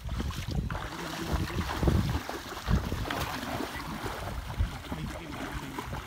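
Shallow muddy water sloshing and splashing as a fine-mesh mosquito net is dragged through it, with irregular low thumps throughout.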